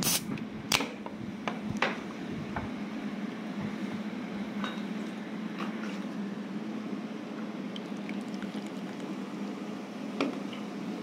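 A can of Bia Hà Nội beer cracked open by its pull tab, with two sharp snaps in the first second. The beer is then poured out, fizzing into a head of foam.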